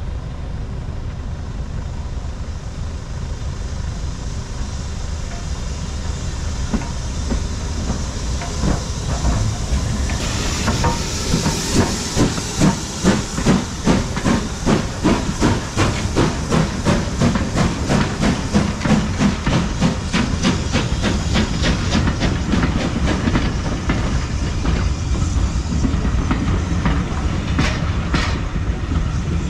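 BR Standard Class 4 2-6-4T steam tank locomotive 80078 coming through with its train. A loud steam hiss sets in about ten seconds in as the engine draws level, with a rhythmic clatter. The coaches' wheels then click steadily over the rail joints as they roll past.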